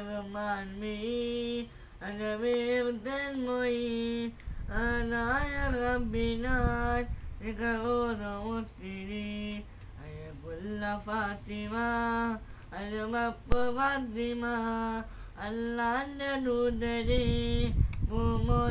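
A boy singing a Mappilappattu (Malayalam Mappila devotional song) unaccompanied, in long held, wavering phrases with short breaths between them.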